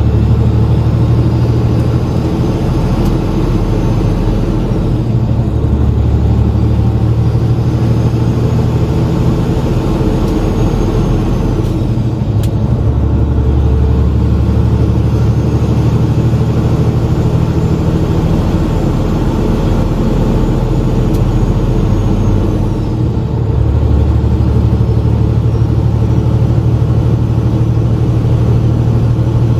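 Semi truck's diesel engine running at highway cruising speed, heard from inside the cab: a loud, steady low drone whose pitch shifts slightly a few times.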